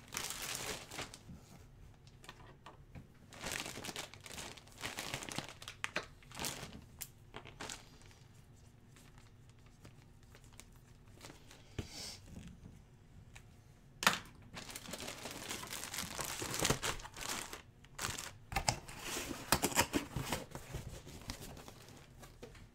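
Plastic wrapping crinkling and rustling as it is handled, in irregular bursts, with a quieter stretch in the middle. There is a single sharp click about 14 seconds in.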